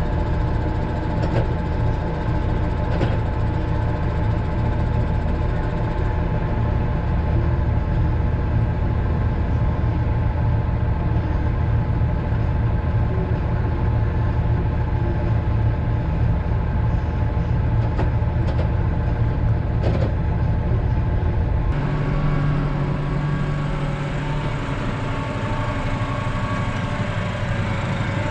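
Tractor engine running steadily, heard from inside the cab, with a few faint knocks. About 22 seconds in the engine note changes as the tractor pulls a loaded manure trailer.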